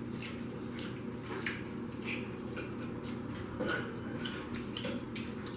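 Eating sounds from people chewing fried chicken and Doritos with a cheese dip: scattered short crunches, smacks and mouth clicks over a steady low room hum.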